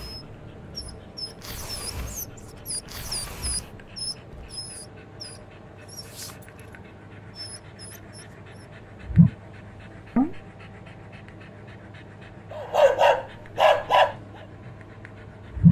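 A dog sniffing and panting, with a few short whines about 13 seconds in. Short high chirps repeat through the first half, and a brief low sound with a quick pitch glide comes about nine seconds in.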